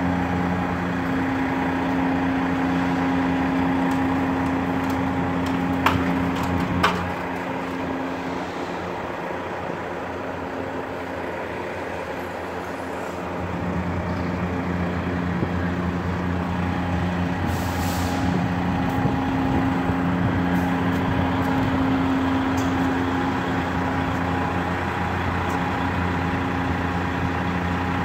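Freightliner semi tractor's diesel engine idling steadily, a low even hum. Two sharp clicks come about six and seven seconds in, and a brief hiss a little past halfway.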